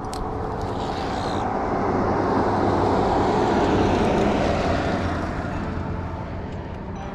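A vehicle passing by: a steady rushing noise that swells to its loudest about three to four seconds in, then fades away.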